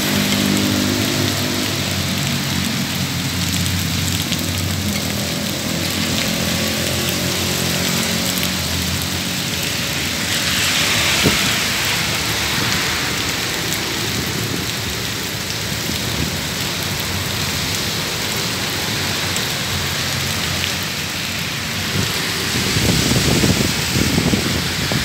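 Heavy rain pouring steadily onto a road and pavement, with a low engine hum of traffic in the first half and the hiss of tyres on the wet road swelling about eleven seconds in. A louder low rumble comes in near the end.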